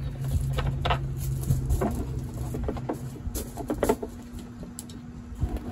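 Small irregular clicks, knocks and scrapes of hands and tools working on metal parts of a stripped utility-vehicle frame, over a steady low hum that stops about three seconds in.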